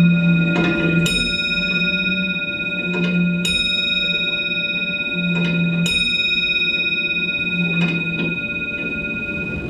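A bell-like metal instrument struck four times, about every two and a half seconds, each strike ringing on into the next so that several steady tones hang throughout.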